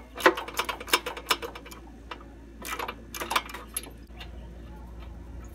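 3/8-inch ratchet with a 13/16 spark plug socket clicking as it backs a loosened spark plug out of a Kawasaki mower engine's cylinder head. The clicks come in short irregular runs, several in the first second and a half and a few more near the middle.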